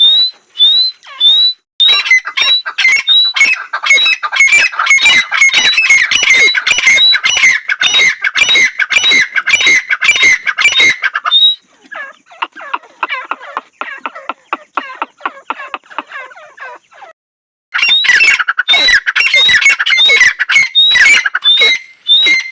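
Female grey francolin (dakhni teetar) calling: rapid, repeated harsh squawking notes, each with a short rising high note. The calling is loud for the first half, drops to a fainter stretch, then comes back loud about three quarters of the way through.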